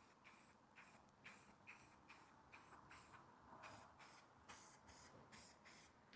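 Faint, quick short bursts of hiss from an aerosol spray can, about two a second: a light coat of rust-encapsulating primer being sprayed onto bolts.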